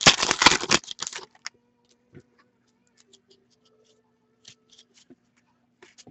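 Foil wrapper of a trading-card pack being torn open and crinkled, loudest in the first second or so. After that come a few faint clicks and slides as the cards are handled.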